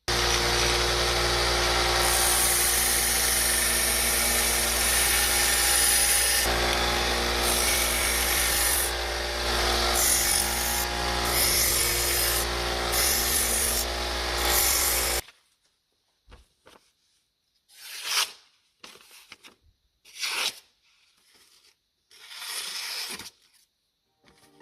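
A bench power tool's motor running steadily with a loud grinding hiss of work held against it, cutting off abruptly about fifteen seconds in. A few separate short rubbing strokes follow.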